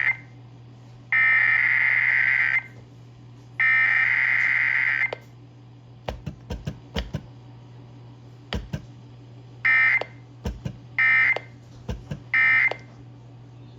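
Emergency Alert System SAME digital data tones: the end of one long warbling burst, then two more long bursts of about a second and a half each, which are the header of the Required Weekly Test. After a few seconds with faint clicks come three short bursts about a second apart, the end-of-message code that closes the alert.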